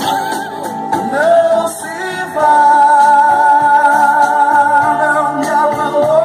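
Singing into a handheld microphone over backing music, with a long held note with vibrato in the middle.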